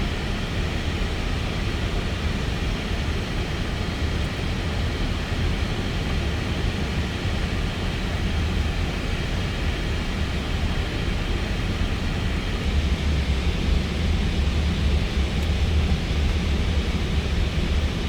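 Steady rush of airflow and engine noise heard inside an Airbus A320 flight deck in flight, with a deep low rumble underneath. The rumble gets a little louder about two-thirds of the way through.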